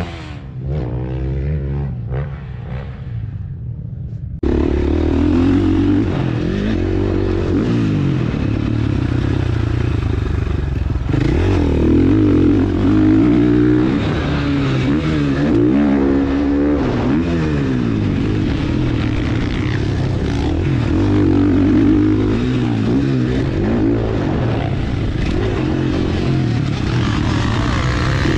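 For the first few seconds a single dirt bike engine revs up and drops off at a distance; then, about four seconds in, it gives way abruptly to the much louder on-board sound of a KTM 450 SX-F single-cylinder four-stroke motocross engine being ridden hard, its pitch climbing and falling back over and over as the throttle is opened and shut.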